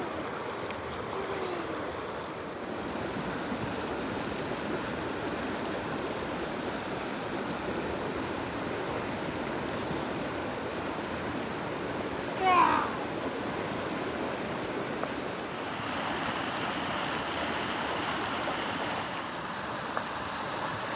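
Potomac River current rushing steadily past over rocks, a continuous wash of moving water. About halfway through comes one brief, loud pitched sound.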